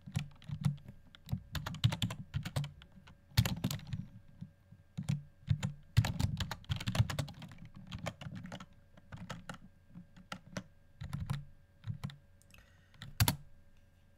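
Typing on a computer keyboard: irregular runs of keystrokes, thinning out after about nine seconds into a few scattered key presses.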